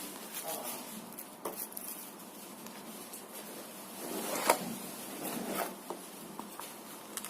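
A product box and its contents being handled: scattered light clicks and rustles of packaging, with one sharper knock about four and a half seconds in.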